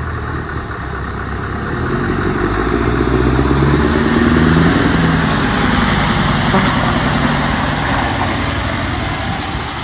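Scania truck's diesel engine roaring as it pulls a loaded low-loader past. The note builds to its loudest about four to five seconds in, then eases a little.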